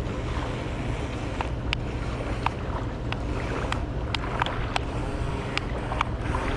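Remote-control boat's motor running steadily, a low hum mixed with wind and water noise, with scattered sharp clicks.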